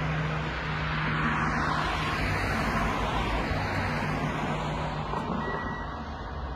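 A car passing on the road, its tyre and engine noise swelling and then fading away.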